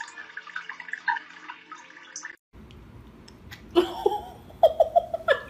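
Small drips and trickles of liquid falling into water, as in a toilet bowl. After a brief break about halfway through, a person's voice with short repeated bursts like laughing takes over.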